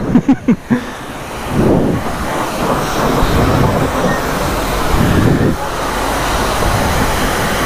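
High-pressure wash wand spraying a steady jet of water onto a motorcycle: a loud continuous hiss of spray that starts about a second and a half in.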